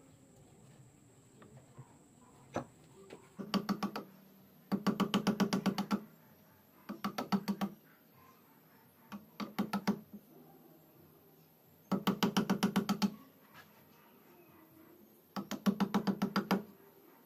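Hammer tapping a chisel into a wooden spoon blank clamped in a bench vise: about six bursts of quick, rapid strikes, each with a pitched ring and lasting up to about a second, with short pauses between them.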